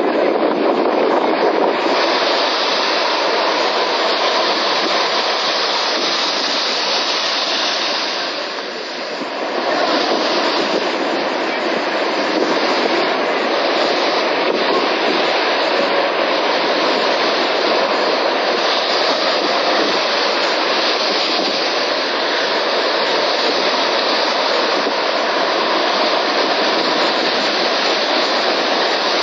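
Sea surf: a steady, continuous rush of breaking waves, easing briefly about nine seconds in before returning.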